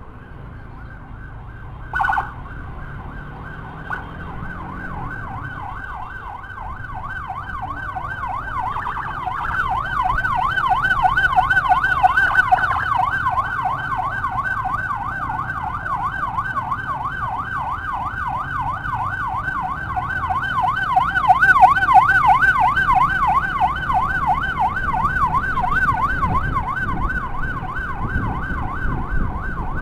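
Motorcycle-mounted 60-watt electronic siren: a short blip about two seconds in, then a continuous fast up-and-down warble that swells in over several seconds and keeps going, over the motorcycle's engine and road noise.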